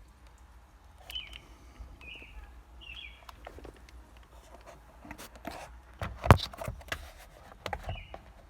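Scattered clicks and knocks of hand work on a car, with one sharp knock about six seconds in. A bird chirps several times in the background, about once a second at first and again near the end.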